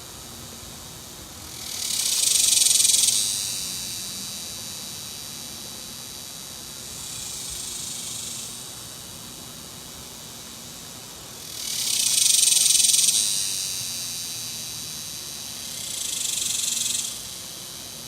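Male cicada singing its mating call: high-pitched buzzing phrases that swell up and fade away, four times, two loud swells alternating with two weaker ones, over a steady fainter buzz.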